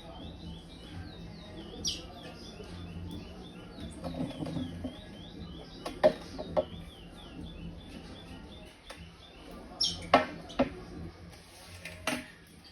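Young curió (chestnut-bellied seed finch) with a steady run of short, quick chirps, broken by a few louder, sharp notes about 2, 6, 10 and 12 seconds in.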